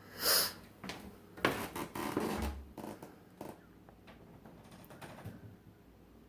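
Unexplained irregular noises: a short hiss just after the start, then a cluster of clicks, knocks and rustling scrapes from about one and a half to three seconds in, and a few fainter knocks after.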